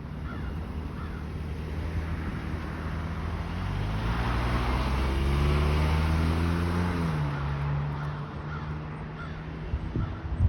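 A motor vehicle passes by, its engine note swelling and then dropping in pitch as it goes past, with a few faint crow caws near the start and near the end.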